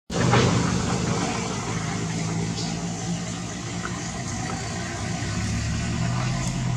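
A motor vehicle engine idling steadily: a low, even hum.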